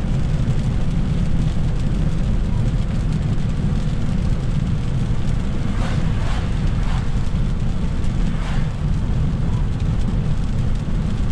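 Steady low rumble of a car's tyres and engine on a rain-soaked highway, heard from inside the cabin. A few short swishes come between about six and nine seconds in.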